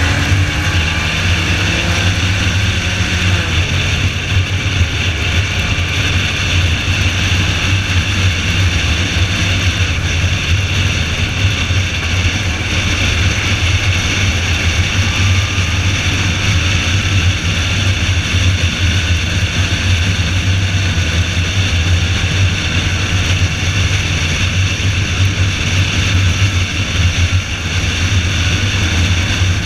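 Car driven at speed on a wet track: a steady low engine drone under a constant hiss of wind and wet road noise, with faint changes in engine pitch now and then.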